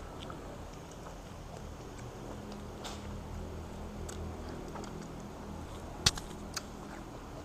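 Quiet room with faint chewing as grapes are eaten, a low steady hum underneath, and a few small clicks, the sharpest about six seconds in.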